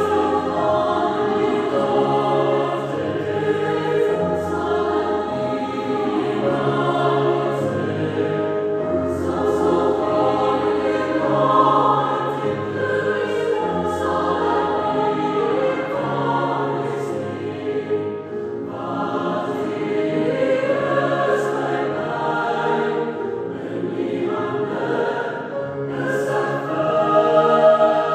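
Mixed choir singing in several parts with grand piano accompaniment, long held chords over steady bass notes.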